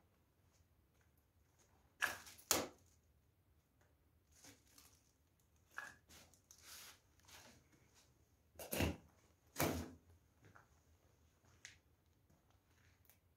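Footsteps crunching on a brick floor covered in rubble and dust: scattered steps, with two louder pairs about two seconds in and again near nine seconds, between quiet stretches.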